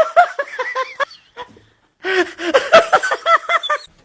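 A person laughing in two bouts of quick repeated "ha" pulses, with a short break after about a second.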